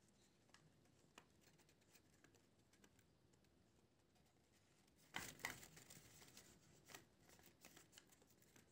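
Near silence, with two faint quick rustles of the paper puppet being handled about five seconds in.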